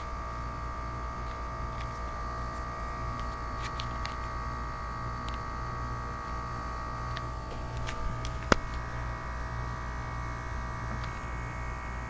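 Goodman 3-ton packaged heat pump running in defrost with a steady hum, its compressor the main sound, which the owner takes for a Copeland scroll. A single sharp click comes about eight and a half seconds in.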